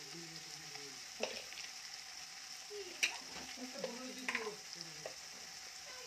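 Spice tempering (tadka) of cumin, mustard seeds, urad dal, coriander leaves, turmeric and red chilli powder sizzling steadily in hot oil in an iron kadai. A metal spoon clicks and scrapes against the pan a few times while stirring.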